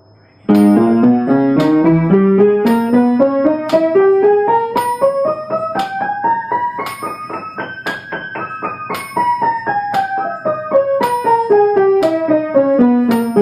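Piano playing a G major broken-chord exercise: small groups of notes climb steadily up the keyboard to a peak in the middle, then step back down. It starts about half a second in.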